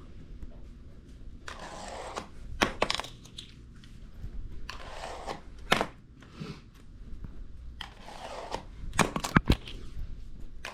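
Fingerboard tricks: three tries, each a quick scraping and rubbing of the board and fingers followed by sharp clacks as the deck is popped, flipped and lands on soft pads.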